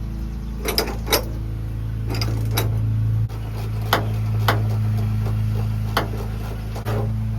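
Scattered clicks and knocks of hand tools on metal seatbelt hardware as a seatbelt is unbolted, over a steady low hum.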